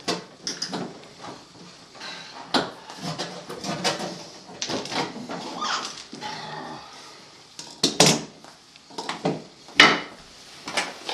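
Irregular knocks, clicks and clatter of parts and tools being handled at a dishwasher under repair, with a few short vocal sounds among them. The loudest knocks come about eight and ten seconds in.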